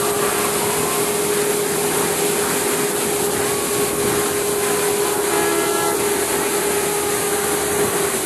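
Fire trucks rolling slowly past: a steady engine hum with one constant drone that stops near the end, over a wash of street noise.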